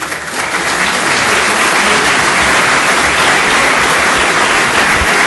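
A chamber full of legislators applauding: dense, steady clapping that swells in over the first half second and holds.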